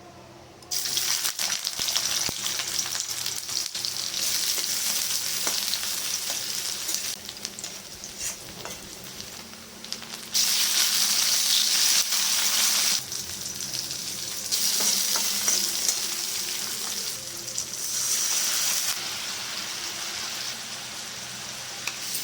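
Food frying in hot oil in a pan: a sizzle that starts suddenly about a second in, then swells and eases in waves, loudest around the middle.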